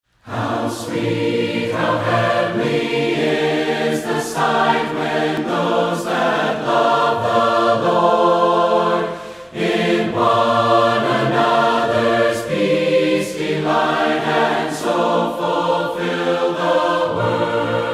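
Choir singing slow, sustained chords that change every second or two, with a short break between phrases about nine and a half seconds in.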